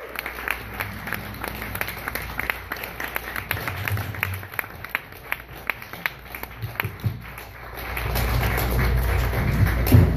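Audience applauding, many hands clapping; the clapping thins about six to seven seconds in, and a louder, deeper sound swells up near the end.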